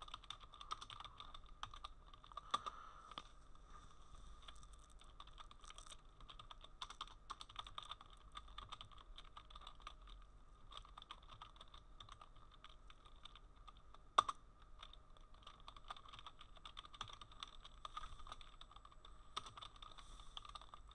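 Typing on a computer keyboard: a run of irregular, faint key clicks, with one sharper keystroke about two-thirds of the way through, over a faint steady tone.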